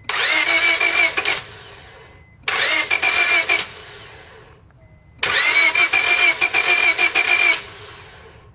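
A Honda's starter motor cranking the engine three times, a short try, a shorter one and a longer one, each with a whine that rises as it spins up and then dies away. The engine does not catch: it won't start.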